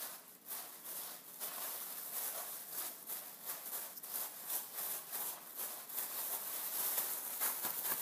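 Dry panko breadcrumbs and grated Parmesan being mixed together, a rapid, irregular dry rustling and rattling of the crumbs.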